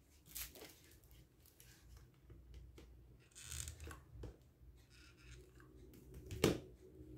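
Cloth and a plastic bottle being handled while fabric is hot-glued around the bottle: small rubbing, crinkling and clicking sounds, with a brief scraping rustle about halfway through. A single hard knock near the end, the glue gun being set down on the table.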